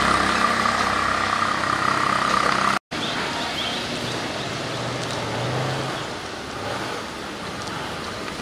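A motor vehicle's engine running steadily. About three seconds in the sound cuts out briefly, then comes back as quieter, steady road noise.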